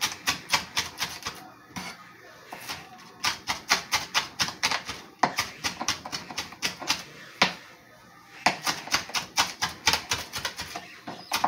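Knife chopping an herb blend of rosemary, thyme and bay leaves on a cutting board: quick runs of sharp taps, about four or five a second, with short pauses between the runs.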